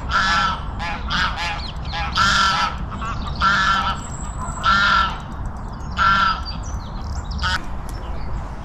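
A bird giving a series of harsh, caw-like calls, about six of them roughly a second apart, then a short one near the end.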